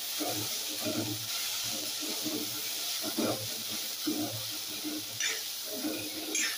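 Okra and potatoes frying in a metal kadai on high heat with a steady sizzle as a spatula stirs them, and a couple of scrapes of the spatula on the pan near the end. Faint voices murmur in the background.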